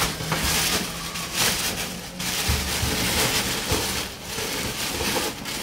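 Thin plastic bag rustling and crinkling as it is handled and pulled over a boat made of plastic water bottles, in irregular stretches with brief pauses.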